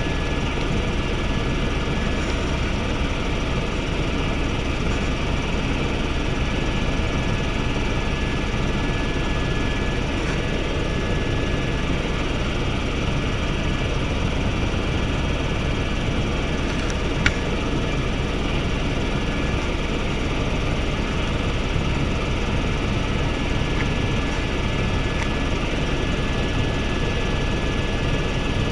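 Helicopter cabin noise in flight: a steady, dense drone of the turbine and rotor with a thin, steady high whine over it. A single brief click comes about seventeen seconds in.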